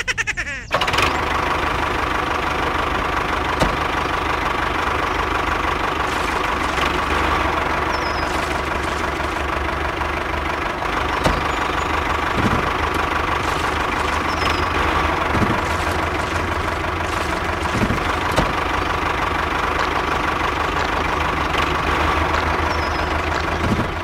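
A miniature DIY tractor's small motor running steadily as the model drives through wet mud under load. The sound starts suddenly about a second in and stays even, with a few faint clicks.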